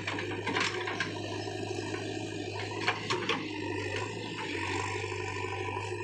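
JCB 3DX backhoe loader's diesel engine running steadily, with sharp metallic knocks and clanks from the machine a few times near the start and in a quick cluster about halfway through.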